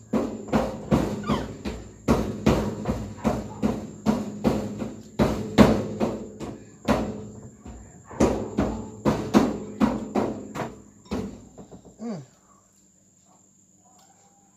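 Rhythmic percussive thumps, about three a second, that stop about eleven seconds in. Under them runs a faint, steady, high insect trill, typical of crickets.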